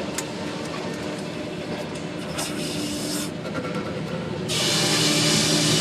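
Sawmill machinery running with a steady hum and scattered clicks and knocks. About four and a half seconds in, a loud hiss starts and holds, after a shorter hiss midway.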